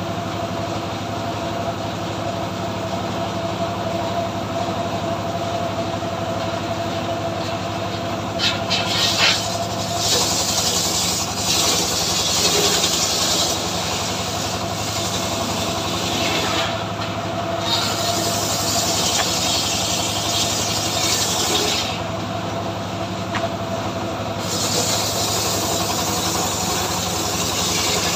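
Homemade engine-driven circular sawmill (srekel) running with a steady engine drone while a johar log is ripped lengthwise. The blade's high cutting noise rises over the engine in three long stretches in the second half.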